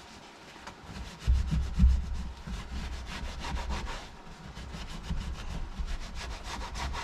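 Fast run of small plastic clicks, about ten a second, with rubbing and low knocks from about a second in: hands fastening wire clips and routing the light's wiring on the Jeep's rear hardtop.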